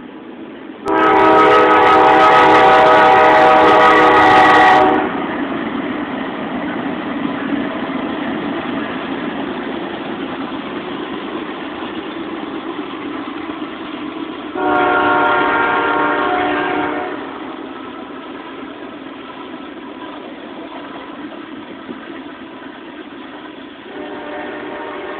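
Diesel locomotive air horn of a Norfolk Southern intermodal freight train. It sounds a long, loud blast of about four seconds starting about a second in, another of about two seconds around fifteen seconds in, and a softer one near the end. Between the blasts the train's steady rolling rumble continues as it passes.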